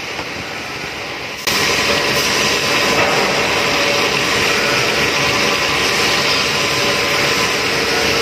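Bridgeport CNC machining centre running a drilling cut under flood coolant: steady machining and coolant-spray noise with faint steady tones, getting suddenly louder about a second and a half in.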